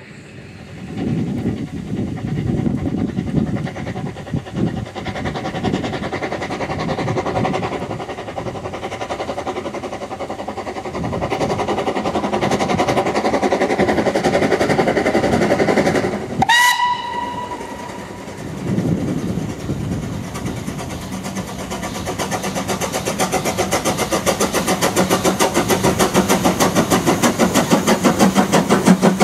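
Narrow-gauge steam locomotives working: noisy exhaust chuffs and steam, one short steam-whistle blast a little past halfway, then a rapid, even exhaust beat that grows louder near the end as a locomotive works hard close by.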